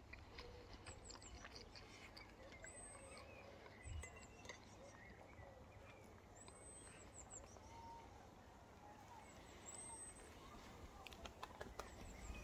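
Near silence: faint outdoor ambience with distant birds chirping now and then.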